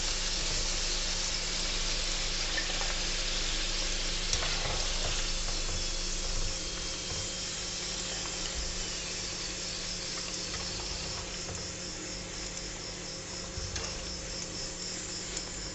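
Potato cubes deep-frying in hot oil with chili flakes, a steady sizzle that eases a little about six seconds in as most of the potatoes are lifted out. A couple of light clicks come from the wire skimmer.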